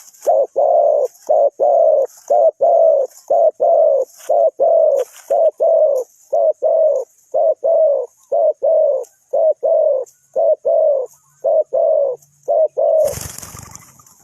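Spotted dove cooing: a long, steady run of about two dozen low coos, ending near the end with a brief rustling noise.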